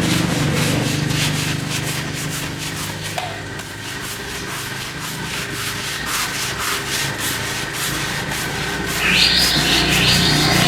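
Repeated rubbing or scrubbing strokes on a surface over a steady low machine hum, with a higher hiss coming in near the end.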